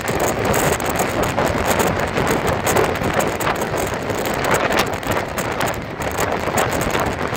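Motorboat running at speed over the water, with wind buffeting the microphone.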